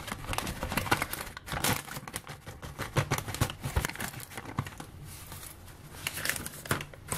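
Paper flour bag crinkling and rustling as it is handled and tipped into a plastic storage container, with irregular small crackles and knocks.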